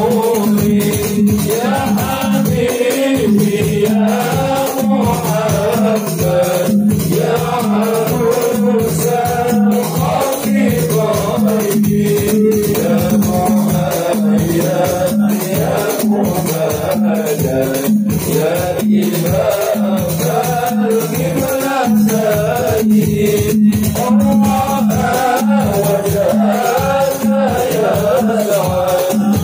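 A group of male voices singing an Arabic sholawat together over hadrah frame drums (rebana) beating a steady, unbroken rhythm.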